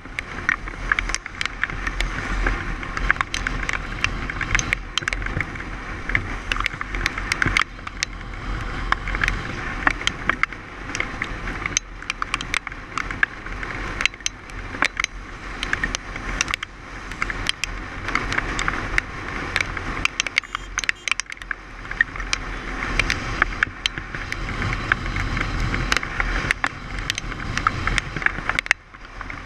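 Motorcycle riding on a wet road: the engine and tyre-on-wet-tarmac noise run steadily, broken by frequent sharp clicks and rattles.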